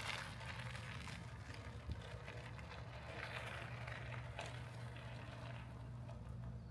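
Faint crunch of an electric bike's tyres rolling over loose gravel, over a low steady hum.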